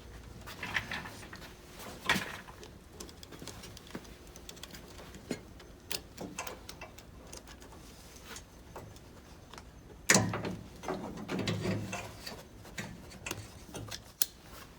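Scattered small metallic clicks and taps of hand tools and wire terminals being fitted onto a ground stud in a car's front corner. A louder clatter comes about ten seconds in.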